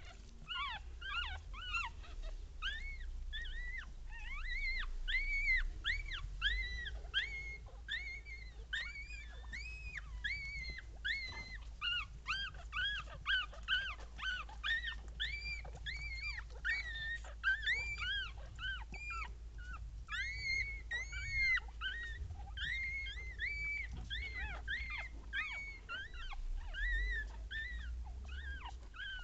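Newborn Papillon puppies squeaking and crying in short, high-pitched arching calls, two or three a second and often overlapping, while their mother licks them.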